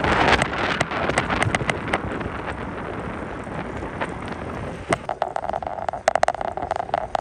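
Bicycle ride: wind rushing over the microphone and tyre noise, with scattered clicks and rattles. About five seconds in, a steady mid-pitched tone joins and the clicks come thicker.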